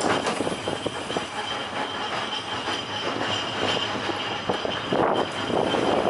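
Electric tram running along the rails, its wheels clicking and rattling over the track under a steady high-pitched whine.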